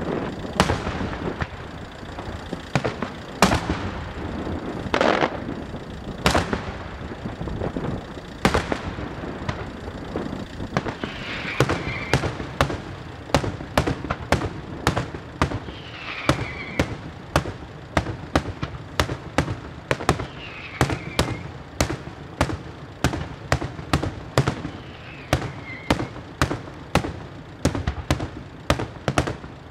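Daytime aerial fireworks display by Bruscella Fireworks: shells bursting overhead with sharp bangs. A few bangs come well apart at first, then from about ten seconds in a rapid run of about two bangs a second.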